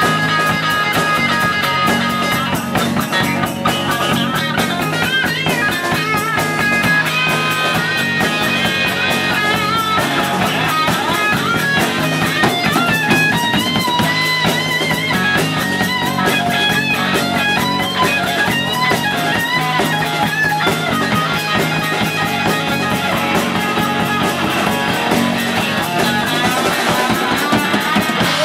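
Live rock band playing an instrumental passage: an electric guitar plays a lead line with bending, gliding notes over a strummed acoustic guitar and a drum kit.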